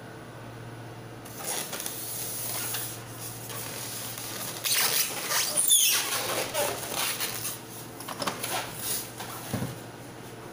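Printer packaging being handled: plastic and cardboard rustling and crinkling, with a short high scrape that falls in pitch about halfway through.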